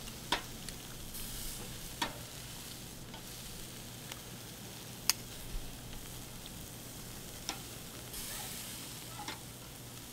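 Raw chicken sizzling on a hot grill grate, with sharp clicks from metal tongs tapping the grate now and then. The sizzle swells twice, about a second in and again near the end.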